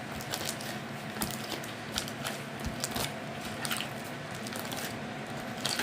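Slime being stirred in a plastic pot as it activates and starts to come away from the sides: irregular light clicks and scrapes of the stirrer against the pot.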